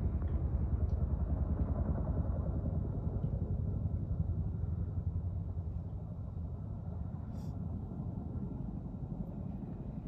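Firefighting helicopter's rotor beating in a rapid, steady chop, slowly growing fainter.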